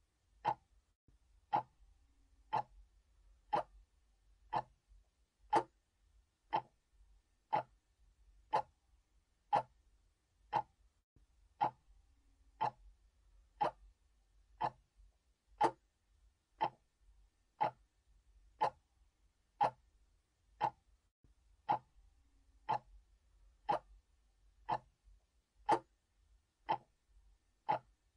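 Mechanical clock ticking steadily, about one sharp tick a second.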